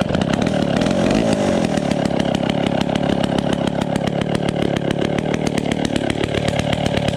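Vintage Pioneer RA two-stroke chainsaw running steadily just after a cold start, with the choke off.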